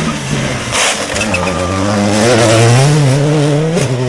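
World Rally Car engine accelerating hard out of a hairpin, its pitch climbing as it revs up and dropping at gear changes, with a brief crack about a second in.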